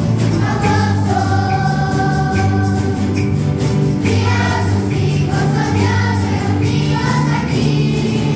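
A children's and youth choir singing a hymn together, accompanied by strummed acoustic guitars over a steady bass line.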